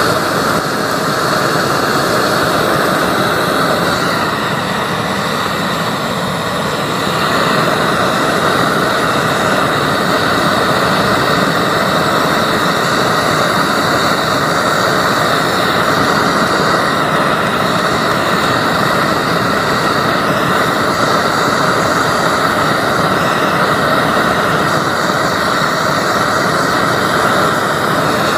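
LPG gas burner with a 45 mm nozzle firing into a brick forge: a loud, steady rushing of the flame, dipping slightly about five seconds in. The forge is heating a crucible of aluminium to melting.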